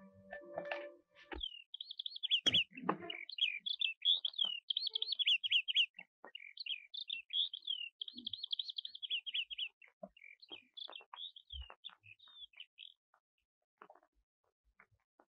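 A small songbird twittering in quick runs of high chirps that die away near the end, with a couple of knocks about two and a half seconds in.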